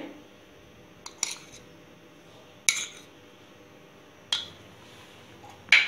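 A few sharp, separate clinks of kitchenware against a glass mixing bowl as spices are tipped in from a plastic tray, with quiet gaps between them.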